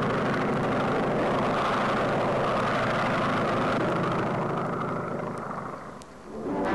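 Propeller airplane engine droning steadily, the sound effect of the early-1930s Universal globe logo with its plane circling the globe; it fades away about six seconds in as orchestral music starts.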